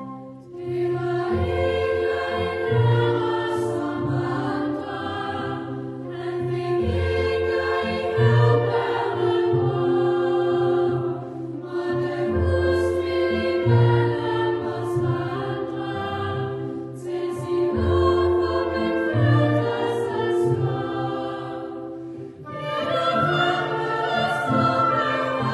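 Choir singing a Christmas carol with a chamber orchestra, in phrases of about five seconds, each ending with a short break before the next.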